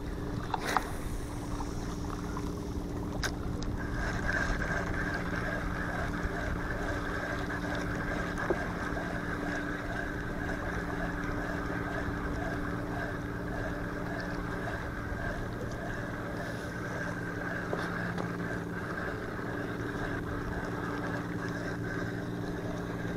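A spinning reel being cranked on the retrieve after a cast, a steady whir that starts about four seconds in, over a steady low motor drone. A couple of sharp clicks come in the first few seconds.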